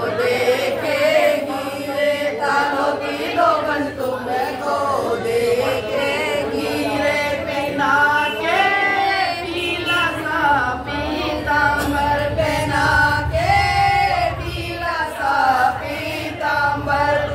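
A group of women singing a Hindi devotional bhajan to Krishna together, unaccompanied by instruments, with hand claps keeping time.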